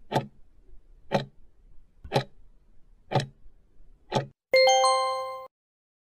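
Countdown-timer sound effect: five clock ticks about a second apart, then a bright bell-like ding that rings for about a second and cuts off abruptly, marking the answer reveal.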